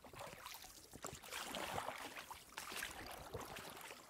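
Faint splashing and lapping of water around a small inflatable boat as it is rowed, in a couple of short spells.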